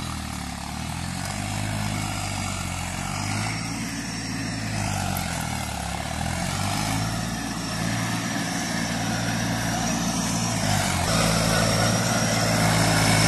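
Diesel farm tractor engine running hard as it tries to pull a loaded trailer out of deep mud. Its pitch wavers, shifts up about eleven seconds in, and the sound grows louder toward the end.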